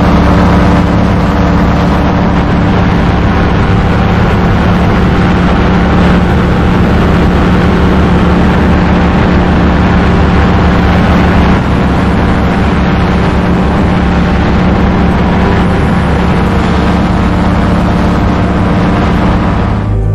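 Paramotor trike's engine and propeller running steadily at flying power, loud and close, a constant buzzing drone that holds one pitch throughout.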